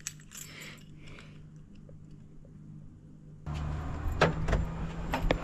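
Faint rustling and a low hum, then about three and a half seconds in a campervan's engine running, with several sharp clicks and rattles over it.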